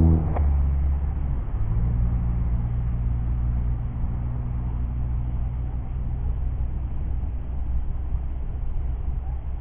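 Golf cart motor running with a steady low hum; just after the start its louder, higher note drops away as the cart eases off, then it holds a lower, even pitch.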